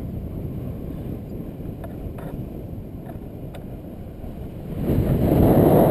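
Wind buffeting the microphone of a camera carried on a paraglider in flight, a steady low rumble that swells louder about five seconds in.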